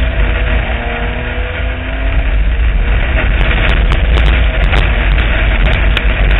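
Street stock speedway car's engine running hard, heard from inside the stripped cabin with the body rattling. It eases briefly about two seconds in, then picks up again, and from about halfway there are many sharp clicks and knocks.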